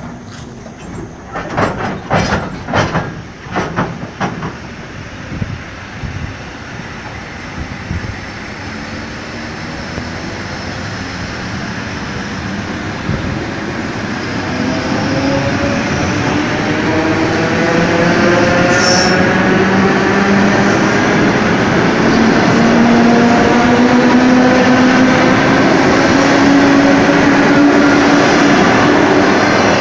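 Suburban electric multiple unit (elektrichka) pulling out and passing close by as it accelerates. A few clicks come in the first few seconds; then the sound grows louder and a whine climbs steadily in pitch from about halfway through, with a brief high squeal near two-thirds of the way.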